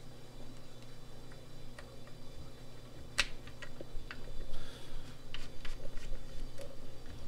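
Light, scattered clicks and taps of a Red Dragon pump's cable plug being worked onto its controller while the pins are lined up, with a sharper click about three seconds in and a run of clicks soon after, over a steady low hum.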